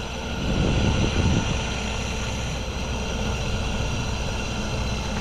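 Sailboat's engine idling steadily with an even, unchanging hum.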